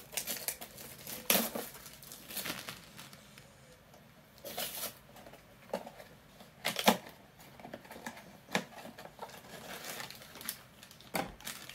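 Funko Mystery Minis cardboard blind box and its foil bag being handled and opened: scattered crinkling and rustling, with sharper crackles about a second in and again near seven seconds.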